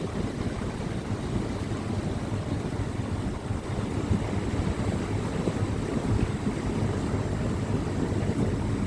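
Tour boat's engine running steadily while under way, with wind rumbling on the microphone.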